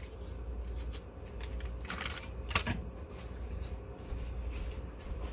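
A cardboard butter carton and its paper-wrapped sticks being opened and handled: light rustling and crinkling with scattered clicks and a sharp tap about two and a half seconds in, over a low steady hum.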